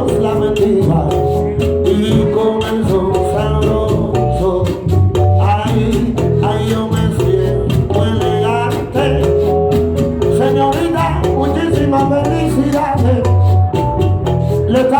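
Salsa music played by a band, with a strong bass line under a steady percussion beat and melodic lines above.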